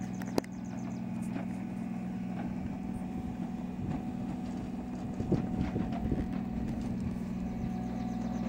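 Kubota RTV 900 utility vehicle's three-cylinder diesel engine running steadily as it tows a chicken tractor over grass. A sharp click comes just after the start, and a few irregular knocks and rattles follow around the middle.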